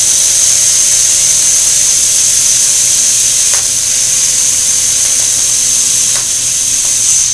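Air-powered seam-sealer spray applicator spraying 1K seam sealer: a loud, steady rush of compressed air with a high whistle in it, with the air pressure turned up slightly. The air cuts off at the end.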